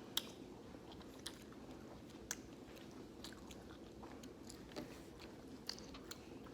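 Faint chewing of a tough, chewy sour candy belt by several people at once, with scattered small mouth clicks and smacks about once a second.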